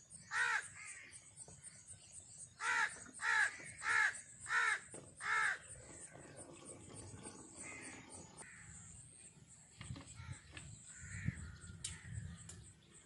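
Crow cawing: six harsh caws, one near the start and then five in quick succession, about two to five seconds in. After that only faint handling sounds with a few light knocks.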